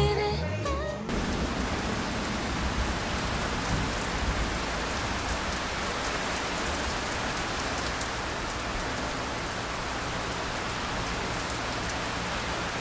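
Steady heavy typhoon rain falling, an even hiss, after music fades out about a second in.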